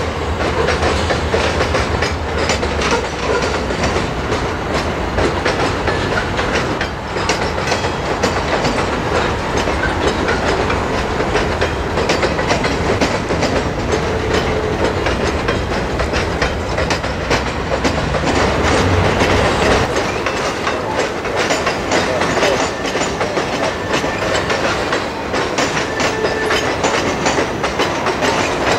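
Freight train rolling past, its car wheels clicking over rail joints in a steady run of clatter. A low rumble underneath drops away about two-thirds of the way through.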